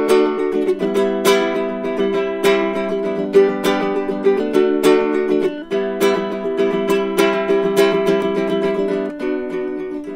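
Baritone ukulele music: a steady run of plucked notes over held chords.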